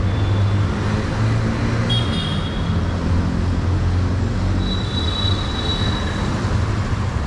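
City street traffic: a steady hum of vehicle engines under a continuous wash of road noise. Two faint high tones come in, about two seconds in and again around five seconds in.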